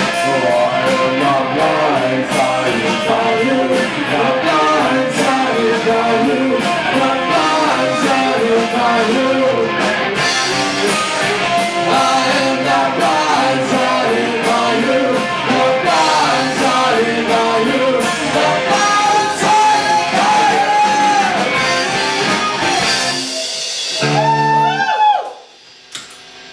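A rock band playing live on electric bass and electric guitar, with singing. The song stops about 23 seconds in, and a last held note wavers and bends before cutting off.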